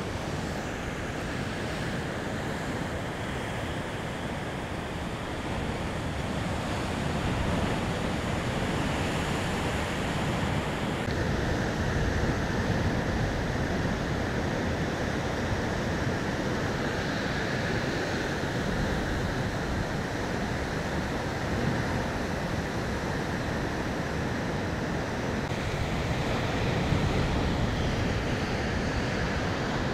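Heavy surf breaking on a rocky shore: a continuous wash of crashing waves and churning, foaming water.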